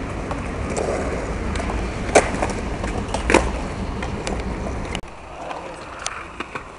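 Skateboard wheels rolling on concrete with a steady rumble, broken by two sharp clacks of the board about two and three seconds in. The rolling cuts off suddenly about five seconds in, and a few lighter clicks follow.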